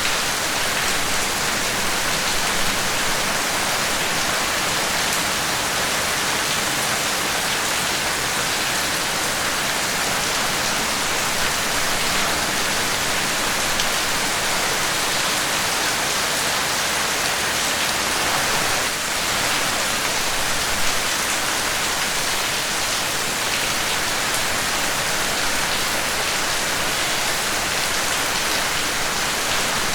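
Steady, heavy rain falling and pattering on a surface, an even hiss without pauses.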